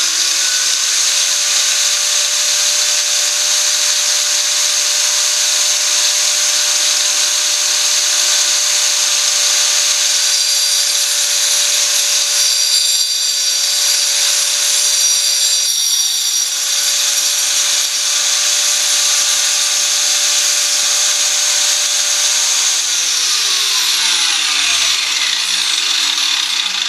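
Angle grinder fitted with a saw blade running flat out, a steady high whine over a coarse grinding rasp as it cuts into a wooden test piece. About 23 seconds in the power is cut and the grinder winds down, its whine falling in pitch.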